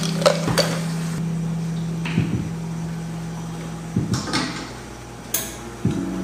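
Ice cubes scooped into a plastic cup, clinking a few times near the start, then milk poured from a carton over the ice, with several soft knocks as the carton and cup are handled. A steady low hum runs underneath.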